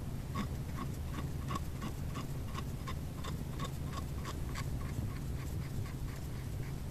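Steady, even ticking at about three ticks a second, each tick short and sharp, over a low hum.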